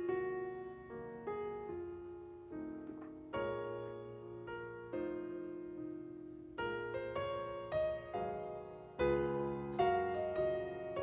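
Piano music: notes and chords struck one after another, each ringing and fading before the next.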